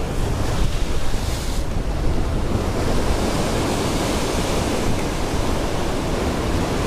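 Sea surf breaking and washing over shore rocks, with wind buffeting the microphone: a steady rushing noise.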